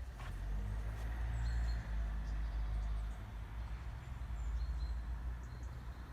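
Outdoor ambience: a steady low rumble, with a few faint, brief high bird chirps scattered through it.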